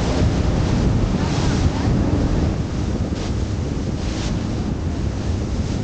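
Wind buffeting the microphone of a speedboat running at speed, over the steady rush of its churning wake, with brief louder hisses about three and four seconds in.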